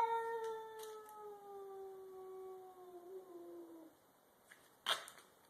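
A cat's long drawn-out yowl during a standoff with another cat before a fight, held for about four seconds while slowly sliding down in pitch, then breaking off. A short sharp noise follows near the end.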